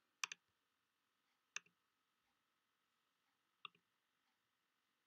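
Computer mouse clicks: a quick double click near the start, then single clicks about a second and a half and about three and a half seconds in.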